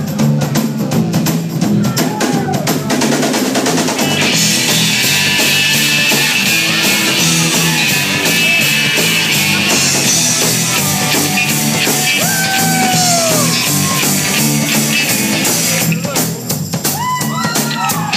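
Instrumental opening of a rock song: a drum kit keeps a steady beat over a moving bass line. About four seconds in, a bright, dense upper layer joins, and it drops away again near the end.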